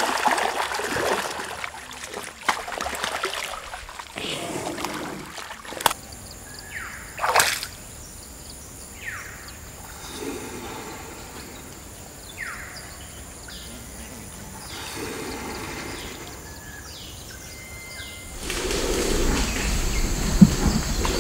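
Greater one-horned rhinoceros wallowing in a shallow river, the water splashing and sloshing as it rolls, then quieter lapping. A few short falling whistle-like calls come in between, and a louder low rumbling noise starts near the end.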